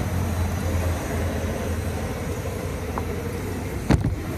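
A steady low mechanical hum, with one short knock about four seconds in.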